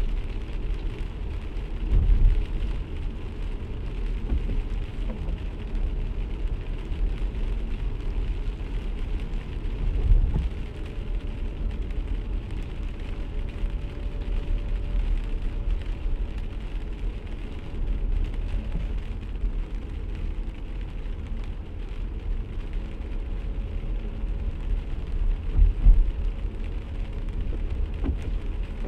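Steady low rumble of a car driving on a wet road, heard from inside the cabin, with rain falling on the car. Three deep, brief thumps stand out: near the start, about a third of the way in, and near the end.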